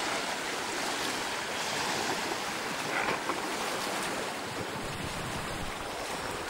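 Small waves washing against a rocky shore: a steady rush of surf.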